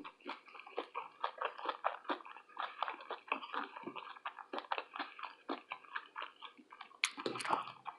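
A person chewing food close to the microphone: soft, irregular mouth clicks and smacks several times a second, with a slightly louder one near the end.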